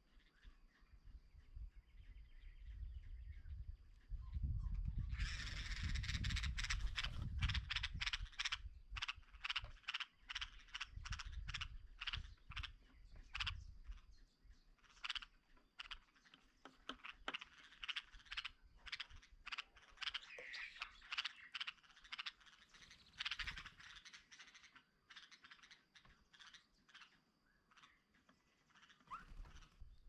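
Common myna calling: a fast run of harsh, clicking, croaky chatter notes that starts about five seconds in and goes on more sparsely until near the end. A low rumble sits under the first half.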